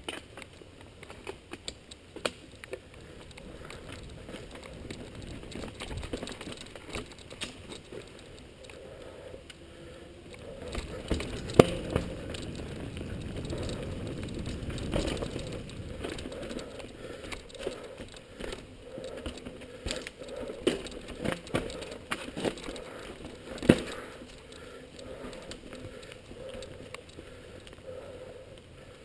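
Mountain bike ridden fast over a rocky, leaf-covered dirt trail: steady tyre and trail noise with frequent clicks, rattles and knocks from the bike going over rocks and roots. Two sharp knocks stand out, one about twelve seconds in and one near twenty-four seconds.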